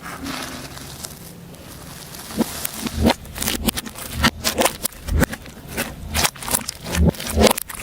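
Slime being handled: a soft rustling squish at first, then from about three seconds in a quick, irregular run of sticky clicks and pops.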